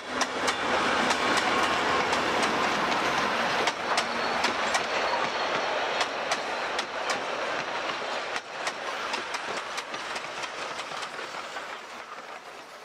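A passenger train's Alco diesel locomotive and carriages pass close by, rumbling along the track with sharp clicks as the wheels cross the rail joints. The sound fades over the last few seconds as the train draws away.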